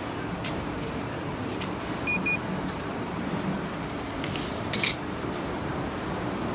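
A handheld infrared thermometer gives two short electronic beeps about two seconds in. Thin sheet steel clinks against a steel plate a few times, loudest just before the five-second mark, over steady background noise.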